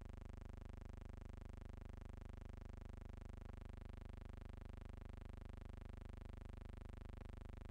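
A faint, steady buzzing hum with no other sound apart from two tiny ticks, about halfway through and near the end.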